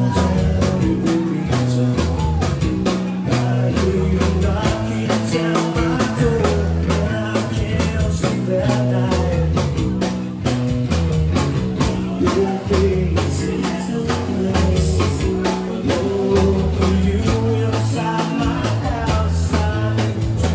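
Live rock band playing: drum kit keeping a steady beat under bass and electric guitar, with some singing.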